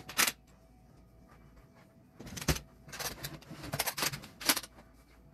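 A handful of short rustling, scraping handling noises, one just after the start and a cluster in the second half, as clothes and household things are moved about.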